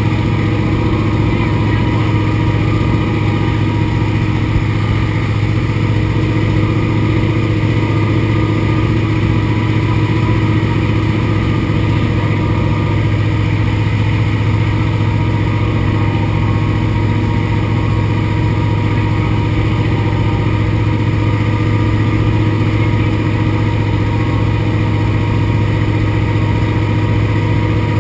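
Antonov An-2 biplane's nine-cylinder radial engine running steadily in flight, heard from inside the cabin as a constant low drone.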